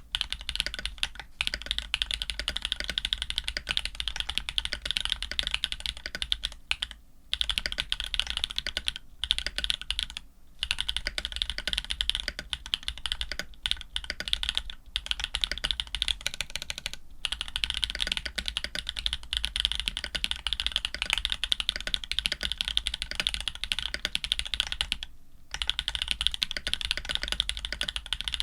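Fast continuous typing on an Orion 2.5 custom mechanical keyboard with lubed Jade Black linear switches (Krytox 105, TX films), an FR4 plate and GMK keycaps, a dense run of keystrokes broken by a few short pauses.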